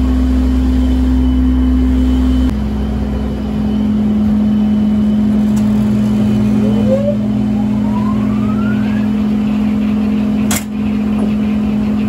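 Sawmill power-unit engine running steadily as it warms up; its pitch drops a step about two and a half seconds in. A faint rising whine sounds partway through, and a sharp click comes near the end.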